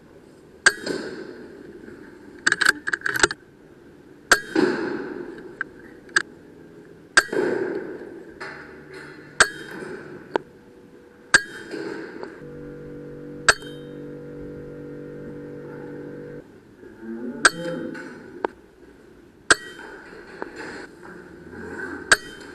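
A series of sharp metallic clicks and cracks, about a dozen spread irregularly, some with a short ringing tail and four in quick succession about three seconds in. A steady humming tone runs for about four seconds in the middle.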